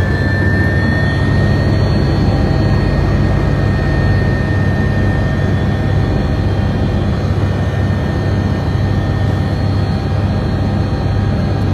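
Helicopter running steadily: a continuous low drone with a steady high turbine whine held on one pitch.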